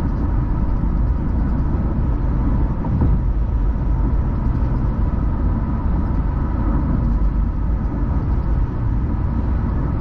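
Steady road and engine rumble of a car driving along, heard from inside the car, with a faint steady hum running through it.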